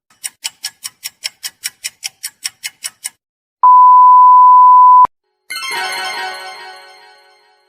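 A string of stock sound effects. First, quick ticks at about five a second for three seconds. Then a loud, steady one-tone beep like a censor bleep, about a second and a half long. Last, a ringing musical chord that slowly fades out.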